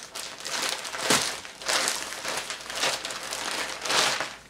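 A plastic poly mailer bag crinkling and rustling in the hands as it is opened and a jacket is pulled out of it. It is loudest about a second in and again near the end.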